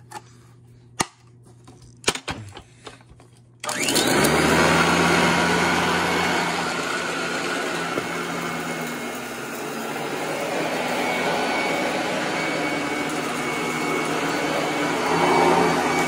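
A few sharp clicks as the height-adjustment knob of a Royal Commercial upright vacuum is set, then about three and a half seconds in the vacuum switches on and runs steadily with a low hum under its rushing air.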